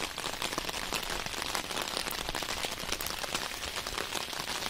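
Steady rain falling on shallow floodwater: a dense, even patter of drops.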